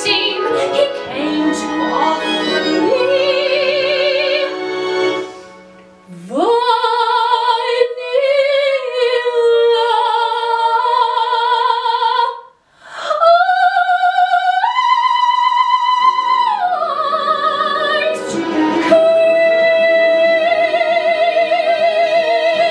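A woman singing soprano in a classical, operatic style: long high notes with wide vibrato that climb to a very high held note around the middle, broken by two short pauses for breath, then one long sustained note with vibrato near the end.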